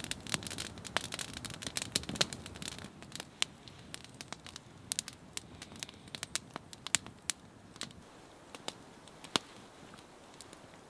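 Campfire crackling, with sharp irregular pops from the burning wood, thick in the first few seconds and thinning out later.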